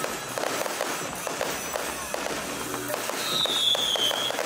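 Aerial fireworks bursting overhead: a dense run of crackles and pops, with a high falling whistle about three seconds in.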